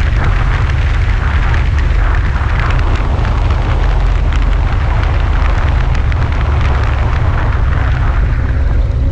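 Wind buffeting a wing-mounted camera's microphone, a steady loud rumble, over the running engine and propeller of a light aircraft on the ground.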